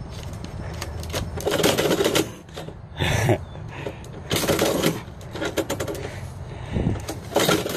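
A paper envelope scraping through a metal door mail slot, with the slot's flap clattering, in several short bursts as the mail is pushed in and shoved back out from the inside by a cat.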